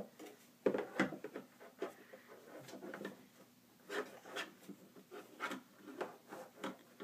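Irregular knocks, clicks and rubbing of hard plastic as a toddler handles the cupboard and microwave doors of a plastic play kitchen; the sharpest knocks come about a second in.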